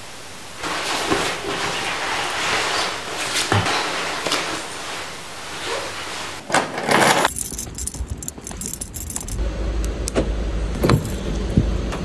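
Handling noise: keys jangling with rustling of clothes and bag, loudest just before the middle. From about seven seconds in, a steady low rumble with scattered clicks and knocks, around a car with its door open.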